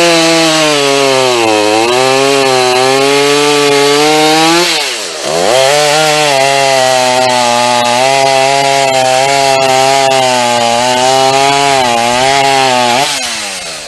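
Gasoline-engine saw running under load while cutting wood. The engine pitch wavers as the cut loads it, sags sharply and recovers about five seconds in, then winds down near the end.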